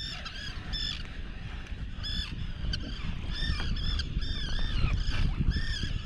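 Several seabirds calling: a run of short, arched cries, a couple a second and sometimes overlapping, over a steady low rumble.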